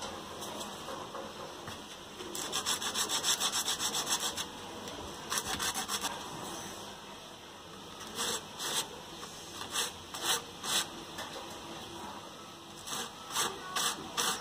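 Small pine and cherry wood discs rubbed by hand on a sheet of sandpaper. First comes a quick run of short scratching strokes, then a shorter run, then single strokes spaced a second or so apart near the end.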